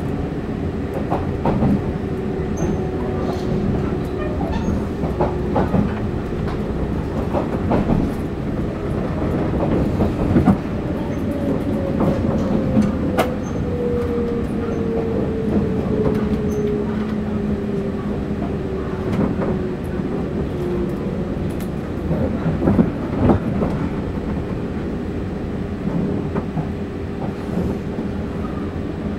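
JNR 189 series electric train running, heard from inside the passenger cabin: a steady rumble with the wheels clacking irregularly over rail joints. Midway a whine slowly falls in pitch over about ten seconds.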